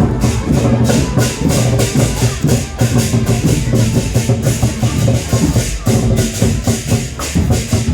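Loud dance music played through a large 'sound horeg' parade sound system: a fast, steady beat over heavy bass.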